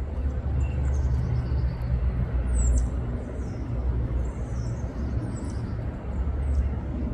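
Steady low rumble with short, high bird chirps scattered over it, several times.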